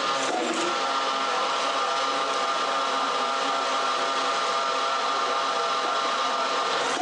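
Metalworking machine in a cookware factory running steadily: a constant motor hum with several steady tones.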